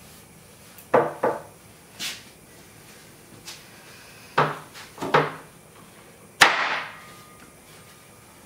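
Knife-bladed spear stabbing into a wooden plank on the floor: a series of sharp wooden knocks, some in quick pairs, the loudest one near the end with a short ringing tail.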